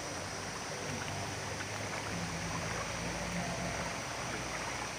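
Steady rushing of water from a waterfall and stream.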